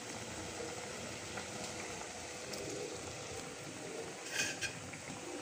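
Chicken korma in an aluminium pot simmering over a gas burner as it comes up to a boil, a steady low hiss. About four seconds in, a spoon clinks a few times against the pot as it stirs.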